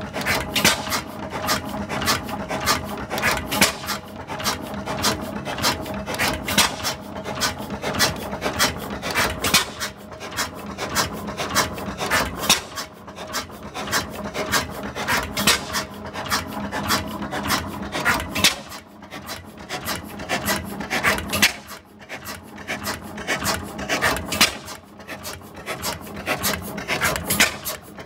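Allan Brothers 11 hp four-stroke hot bulb oil engine running on kerosene, giving a steady, rapid clatter of regular mechanical clicks and knocks.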